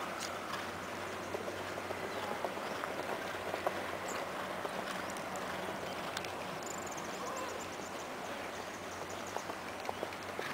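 Horses cantering on a soft sand arena: faint, irregular hoofbeats under a steady hiss of outdoor noise.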